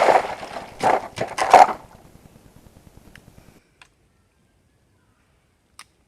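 Ruger 22/45 .22 LR pistol firing: the ringing tail of a shot, then about three more sharp reports in quick succession within the next second and a half. After that it is nearly silent apart from a few faint clicks.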